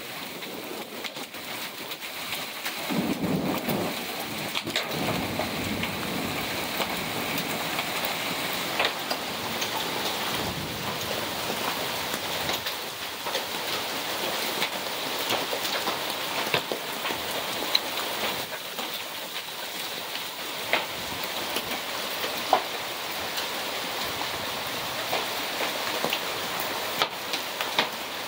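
Hail storm: a steady hiss of heavy rain with many sharp clicks of hailstones striking, and a low rumble about three seconds in.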